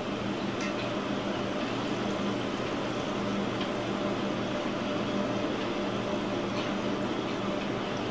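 Battered cauliflower deep-frying in a pot of hot oil: a steady sizzle and bubbling, with a low steady hum underneath and a few faint clicks of metal tongs against the pot.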